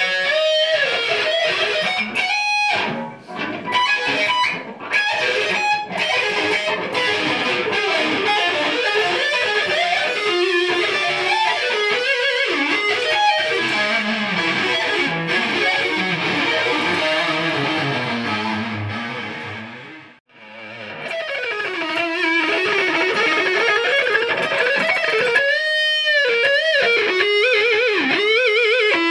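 Electric guitar played through a Mesa/Boogie Dual Rectifier tube amp head: a lead line of single notes, breaking off briefly about twenty seconds in and picking up again with wide vibrato near the end.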